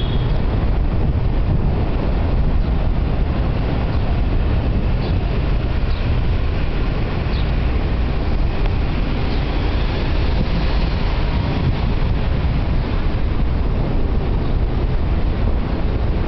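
Steady wind noise on the microphone of a camera riding on a moving Vélo'v bike-share bicycle, mixed with the rolling of the bike on pavement, with a few faint ticks.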